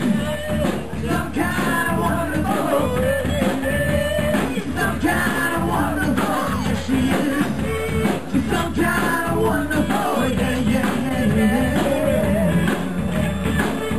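Live rock band playing loudly, with drums and bass under a lead line that bends in pitch.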